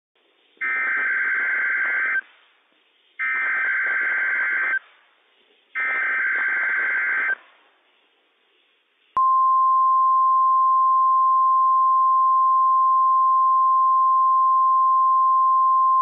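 Emergency Alert System (SAME) header on NOAA Weather Radio: three bursts of warbling digital data tones, each about a second and a half long with short pauses between. About nine seconds in, the 1050 Hz weather radio warning alarm tone starts as one steady, unbroken tone, sounded here as a test of the warning alarm.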